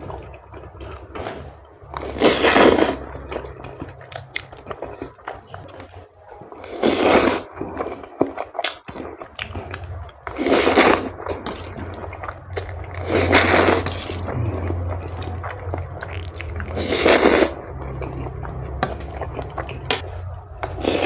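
Close-up eating of noodles in chili broth: five loud slurps a few seconds apart, with chewing and small clicks between them.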